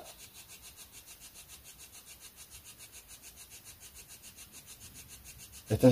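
Spirit box sweeping through radio stations: faint static chopped into about eight even pulses a second, with no voice coming through.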